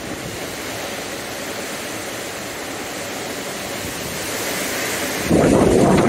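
Steady rush of derecho wind and rain. About five seconds in it turns suddenly louder and rougher, with wind buffeting the microphone.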